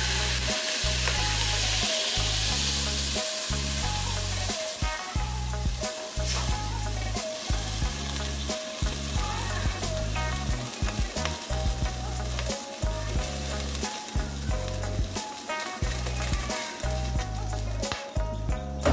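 Hot water poured from a kettle into a pot of oil-fried broken rice, hissing and sizzling as it hits the hot pan. The hiss is strongest in the first few seconds.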